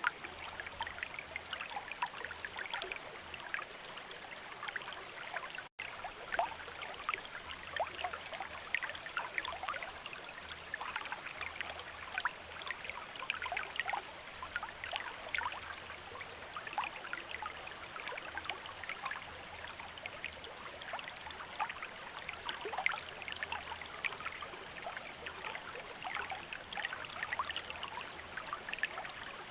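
Gentle running water flowing and trickling steadily, with many small splashes and droplets. The sound cuts out for an instant about six seconds in.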